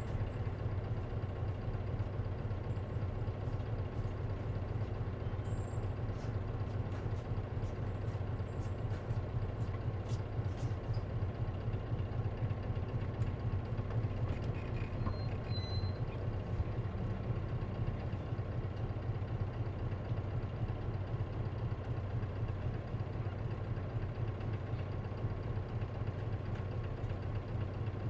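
Isuzu KC-LV380N city bus's diesel engine idling steadily, heard from inside the passenger cabin.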